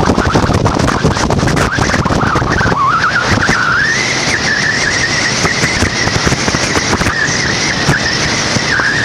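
Motorboat engine speeding up, its whine rising in pitch over a second or so and then holding steady at cruising speed, with wind buffeting the microphone and the rush of the hull through the water.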